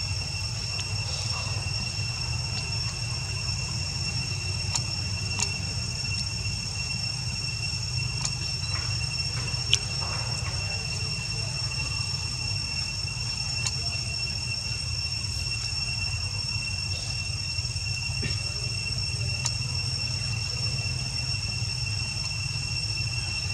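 Woodland ambience: a steady high insect drone of two unbroken, shrill tones, over a steady low rumble, with a few faint clicks scattered through.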